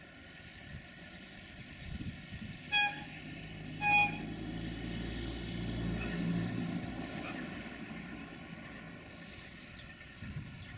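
Two short blasts on the horn of a CFR 060-DA (LDE2100) diesel-electric locomotive, about a second apart. Then the locomotive's Sulzer diesel engine runs with a low drone that swells as it approaches and then eases off.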